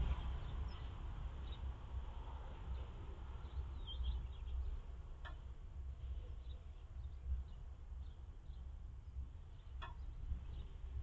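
Outdoor ambience through a security camera's microphone: a low rumble with faint, short, high bird chirps here and there, and two sharp clicks, about five and ten seconds in.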